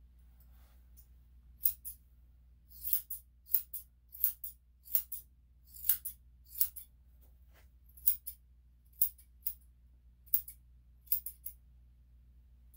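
Grooming scissors snipping through a Shih Tzu's coat: short, crisp snips in an irregular run, often two in quick succession.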